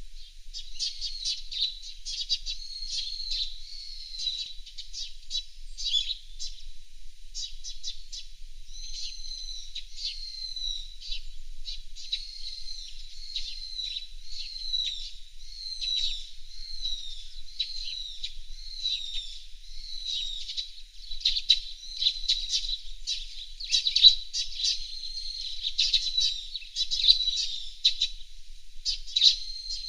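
Small songbirds chirping and twittering without pause, a dense run of short high-pitched notes, many of them quick downward slurs, growing a little louder in the second half.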